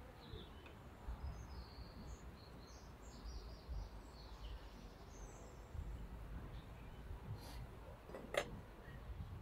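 Small birds chirping faintly over a low rumble, with a single sharp click about eight seconds in.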